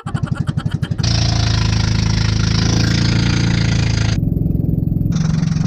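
Small engine of a motorised outrigger boat running: separate chugging beats for about the first second, then a steady, louder drone.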